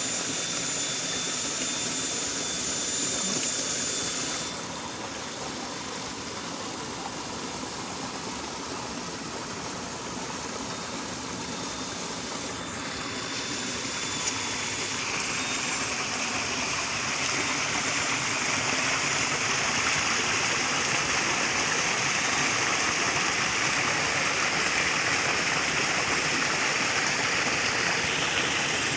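Small stream running, a steady rushing hiss of water that grows louder about halfway in.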